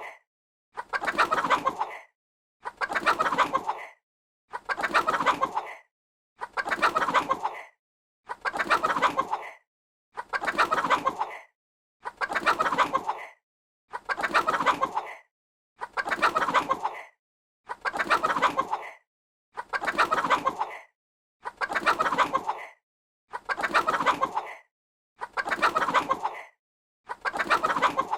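Chicken clucking: the same short run of rapid clucks repeats about every two seconds, with a moment of silence between each run.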